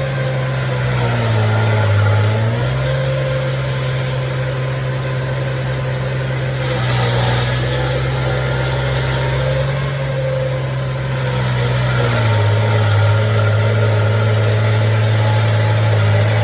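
Stump grinder's engine running steadily. Its pitch drops twice for a few seconds, and a brief hiss comes about 7 seconds in.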